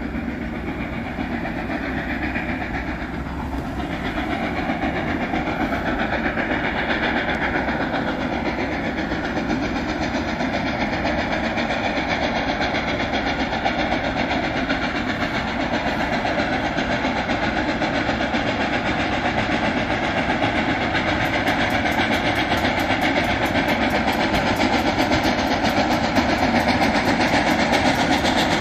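Freight train of empty cars behind Reading & Northern 2102 rolling on the rails, a steady loud rumble of wheels and cars.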